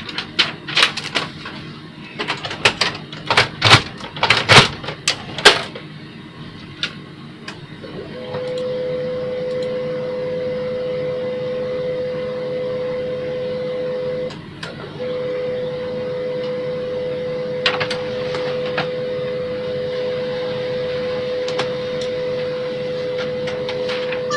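Canon LBP-2900 laser printer running a test print: sharp clicks and clacks for the first few seconds, then a steady hum of its motor and gear train from about 8 s in, dropping out briefly around 14 seconds. It runs without a squeak, the squeak having been repaired.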